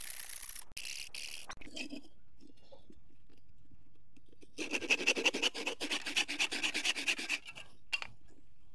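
Small hand saw cutting a thin wooden plank: a short spell of sawing at the start, a pause, then about three seconds of quick back-and-forth strokes and one last stroke near the end.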